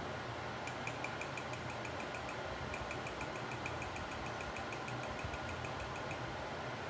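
A steady low mechanical hum with a fast, even ticking over it that stops about six seconds in.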